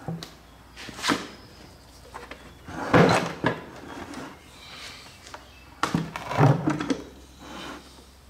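Heavy steel multi-disc wet clutch assembly being turned over and set down on a plastic oil bucket: a series of clunks and metal knocks, loudest about three seconds in and again around six seconds in.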